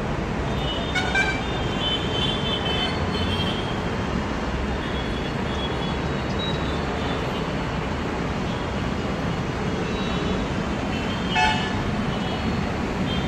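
Steady rumble of road traffic, with short vehicle horn toots about a second in and again near the end.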